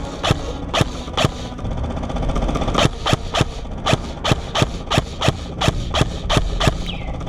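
An ICS airsoft electric rifle firing a long string of single shots, a sharp snap about three to four times a second at uneven intervals.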